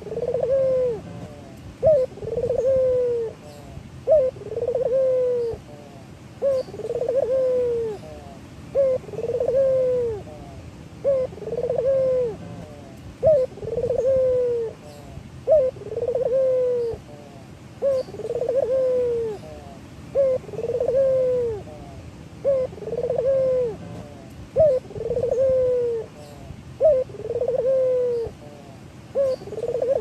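A male domestic ringneck dove (Barbary dove, "puter lokal") cooing over and over. Each call is a short sharp note followed by a longer, rolling coo, repeated about once every two seconds.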